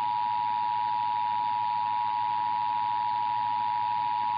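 Emergency Alert System attention signal: the steady two-tone alarm of 853 and 960 Hz sounding together over broadcast radio, announcing a required monthly test, with a steady hiss beneath it.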